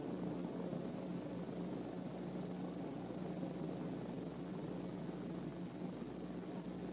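Steady hiss with a low, even electrical hum underneath: the background noise of an old recording, with nothing else happening.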